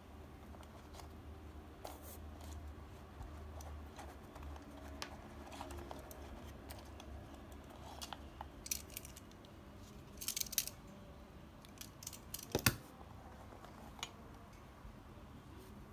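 Handling sounds of a small leather pouch being opened and its contents taken out: soft rustles and scattered light clicks, a brief crinkly cluster about two-thirds through, and one sharp knock soon after. A low steady hum runs underneath.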